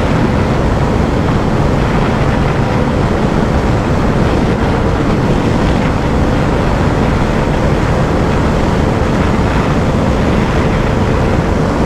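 Loud, steady wind rush from riding at high speed on a Bajaj Dominar 400, with the motorcycle's 373 cc single-cylinder engine holding a steady note beneath it in sixth gear, close to its top speed.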